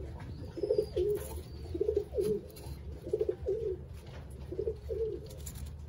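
Racing pigeon cooing in a series of short, pulsing low coos, four or so phrases with short gaps between them.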